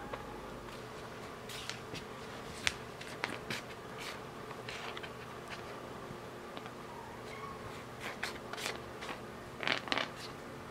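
Scattered light clicks and rustles of board-game pawns, cubes and cards being pawed and knocked across the cardboard board by kittens. A louder cluster of rustling comes near the end.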